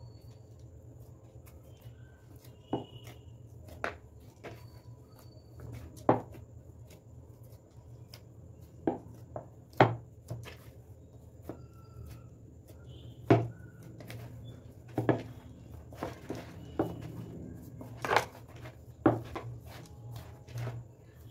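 Soft wheat dough kneaded by hand in a plastic bowl on a wooden board: irregular knocks and slaps, one every second or two, as the fist presses the dough and the bowl bumps the board. A steady low hum runs underneath.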